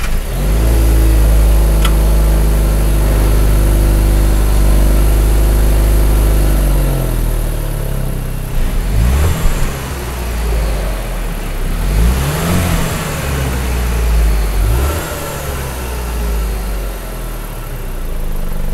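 Range Rover Evoque engine heard from behind the exhaust. It starts up at the beginning and runs at a steady fast idle for about seven seconds. It then drops back and is revved briefly about four times, the pitch rising and falling with each rev.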